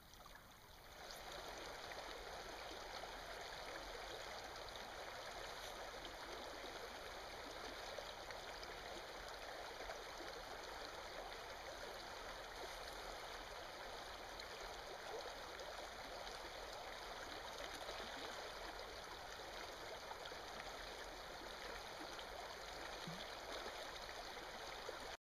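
Small stream running over rocks, a steady rush of flowing water that gets louder about a second in.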